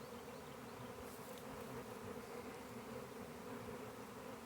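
A honey bee swarm buzzing: a steady hum of many wings, with many bees fanning at the swarm box, which the beekeeper takes as a good sign.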